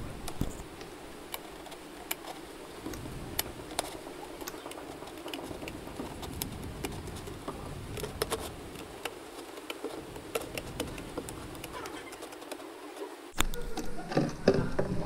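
Scissors cutting through a thin plastic water bottle: a scattering of small snips and clicks. About 13 seconds in, a sharp click, then louder handling noise from the plastic.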